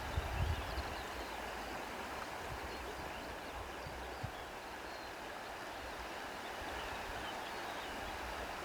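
Steady outdoor nature ambience: an even rushing like a flowing stream, with a low rumble underneath.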